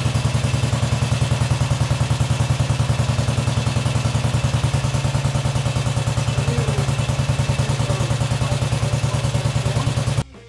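1965 Velocette MSS's single-cylinder four-stroke engine idling with an even, rapid beat. It cuts off suddenly near the end.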